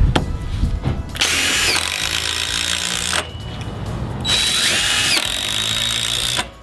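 DeWalt 20-volt cordless driver driving lag bolts through a metal E-track rail into a wooden trailer deck. It runs twice for about two seconds each time, speeding up at the start of each run.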